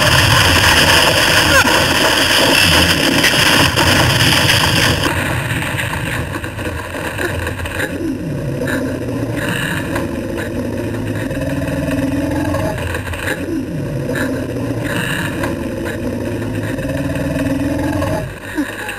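Film sound effects of a Tyrannosaurus rex growling and roaring, over a loud rushing noise that drops away about five seconds in.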